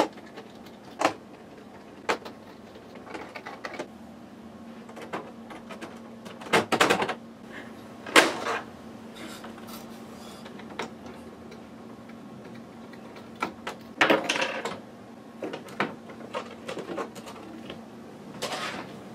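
Scattered clicks, knocks and short plastic clatters as an HP Photosmart C5180 inkjet printer's casing and screws are worked loose and lifted off by hand with a screwdriver, with a few louder clatters spread through.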